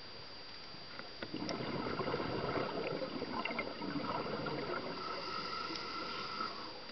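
Scuba regulator exhaust underwater: a diver's exhaled breath bubbling out as a crackling, gurgling rush that starts a little over a second in, runs about five seconds and fades out near the end.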